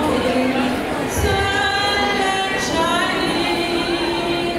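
Music: a woman singing a song with long held notes.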